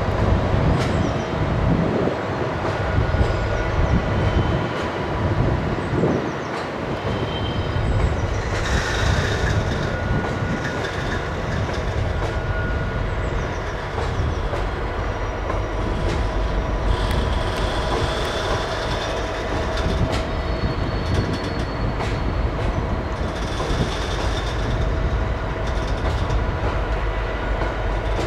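Loaded stone wagons of a freight train rolling slowly past on curved track, a continuous rumble and clatter of wheels on rail. High-pitched wheel squeal comes and goes, at about nine seconds, again around seventeen seconds and again near twenty-four seconds.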